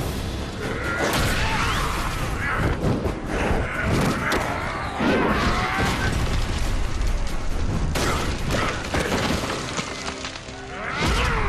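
Animated fight-scene soundtrack: a dramatic music score under repeated heavy punches, crashes and thuds, with voices shouting over it.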